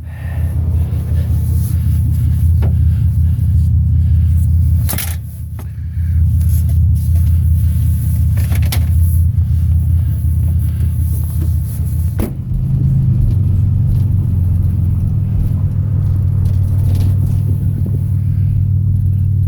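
Van driving, a steady low engine and road rumble whose pitch shifts about twelve seconds in, with a few scattered clicks and knocks.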